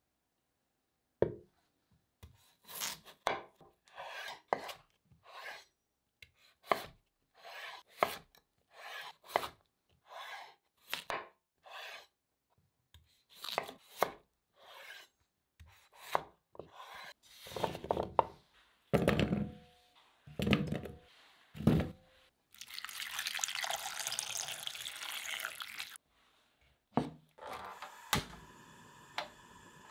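A chef's knife cutting peeled raw potatoes on a bamboo cutting board: one knock and slice after another, each stroke separate. Later come a few heavier, lower knocks, then a steady rushing noise for about three seconds, and a few sharp clicks over a faint hiss near the end.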